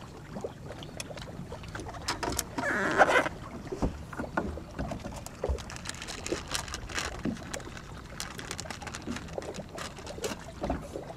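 Scattered small knocks and clicks of gear being handled in a boat, with a short rustle about three seconds in.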